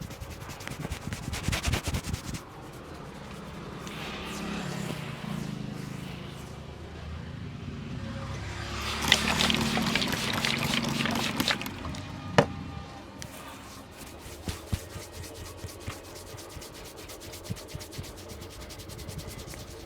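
Hands rubbing and scrubbing hair and scalp in a barber's head massage, over background music, with one sharp snap about twelve seconds in.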